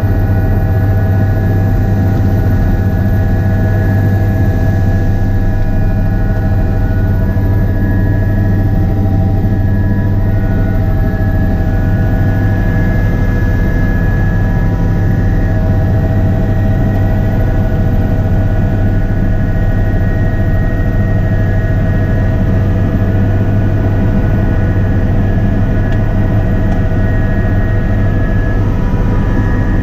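Helicopter engine and main rotor heard from inside the cabin, running under power as it lifts off and climbs away: a loud, steady low drone with several steady whining tones above it.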